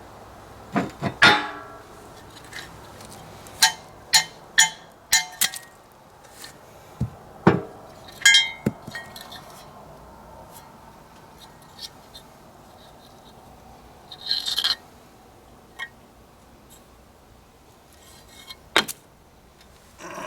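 Metal tools and parts clinking and tapping against the mower deck's spindle and bearing during bearing replacement: irregular sharp metallic knocks, each with a short ring, several in quick succession about four to five seconds in, and a brief scraping rustle about two-thirds of the way through.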